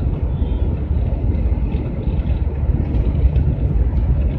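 Steady low rumble of a GAZelle van driving at highway speed: engine and tyre noise heard from inside the cab.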